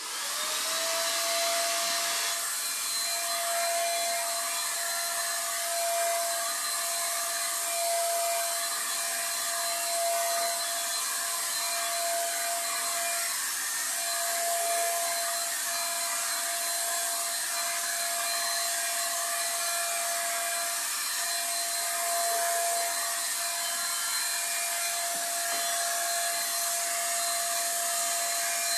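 Electric handheld paint sprayer switched on, its motor whining up to speed within about a second, then running steadily with an airy hiss as it sprays paint.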